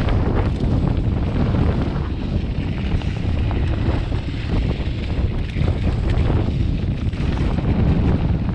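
Wind buffeting the camera microphone as a mountain bike rides fast down dirt singletrack, over a steady rumble of tyres on the trail with small clicks and knocks from the bike over bumps.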